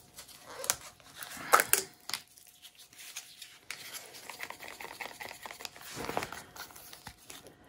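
Scattered light clicks, taps and knocks of small objects being handled on a work surface, with brief rustles. The loudest comes about a second and a half in, with another cluster around six seconds.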